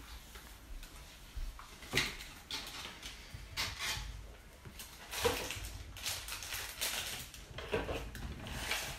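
Hard plastic toy parts clicking and clattering as they are handled and set down, with a sharper knock about two seconds in, between softer rustling of a paper leaflet.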